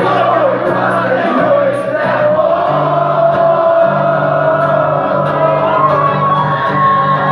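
Live concert music: a band playing a repeating bass line under a singer's drawn-out, gliding vocal, with a long held note near the end.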